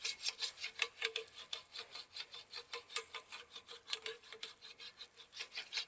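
Fast, even strokes of a repair tool working a collapsed brass trombone slide tube, about six or seven short scraping strokes a second, faint.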